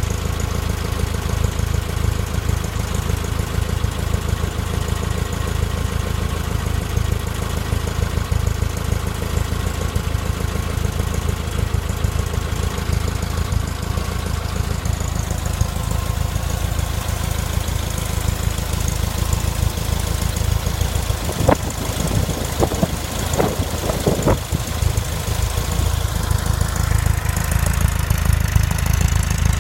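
VW Type 4 2.0-litre fuel-injected air-cooled flat-four idling steadily, with a short run of irregular knocks about two-thirds of the way through. This is the random knock that comes only at warm idle and goes away above idle, traced to a worn cam thrust bearing.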